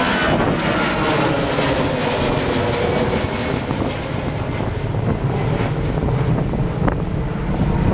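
A jet airliner's engines after it has passed on takeoff: the engine whine drops in pitch and fades, leaving a broad jet rumble that slowly dies away.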